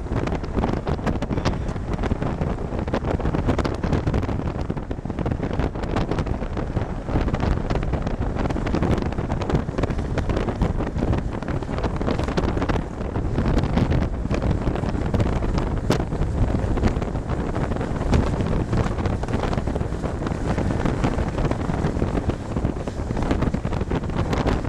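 Strong wind buffeting the microphone, a steady rushing rumble that flutters unevenly.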